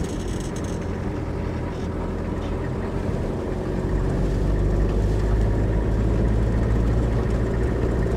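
Vehicle engine running and tyres rolling on a dirt track, heard from inside the cab as a steady low rumble that grows louder about halfway through.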